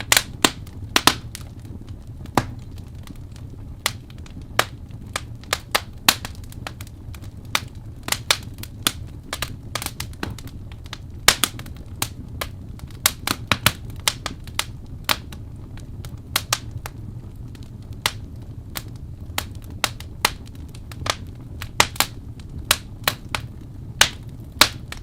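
Wood fire crackling in a fireplace: irregular sharp pops and snaps, often a few a second, over a steady low rumble of the burning fire.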